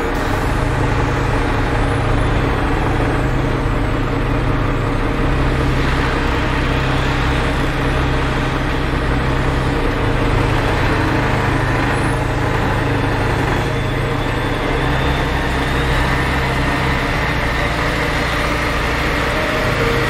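Volvo articulated dump truck's diesel engine running as the truck drives on a haul road: a steady low drone whose pitch shifts a few times, with tyre and road noise.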